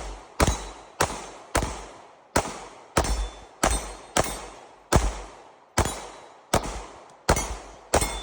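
A fast string of gunshots, about thirteen in all, roughly one every half to three-quarters of a second, each with a short echo. Thin metallic pings after several shots fit rounds striking steel targets.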